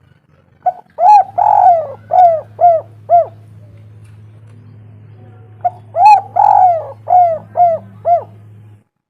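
Spotted dove (tekukur) cooing: two phrases about five seconds apart, each a short note, a longer drawn-out coo, then three or four short coos.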